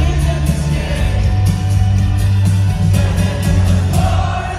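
Live rock band playing through a concert sound system, heard from the audience: heavy bass, a steady drum beat and singing.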